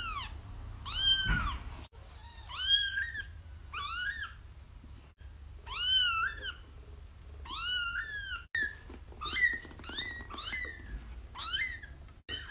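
Kitten meowing over and over, a high call about once a second, each rising and then falling in pitch. The calls come quicker and shorter in the second half.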